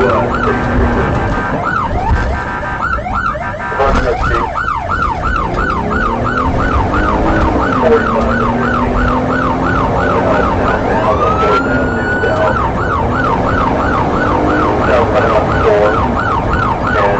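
Police car siren sounding in a fast yelp, about three to four sweeps a second. Near the middle it breaks into one slow rising wail, then the yelp resumes.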